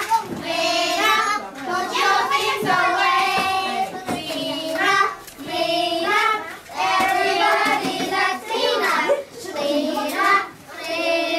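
Children singing a clean-up song together, in short melodic phrases with brief breaks between them.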